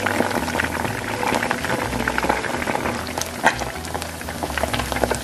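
Potato-starch-coated king oyster mushroom pieces deep-frying in hot oil: a steady, dense bubbling sizzle full of small crackling pops.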